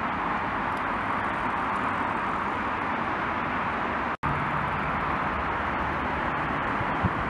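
Steady roar of distant road traffic, with no separate vehicles standing out. About four seconds in, the sound drops out for an instant, and a low steady hum runs under the roar afterwards.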